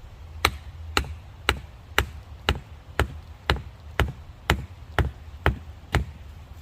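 Sledgehammer driving a wooden wedge in behind a post: twelve sharp, even blows, about two a second. The wedge is being tightened in to brace the post.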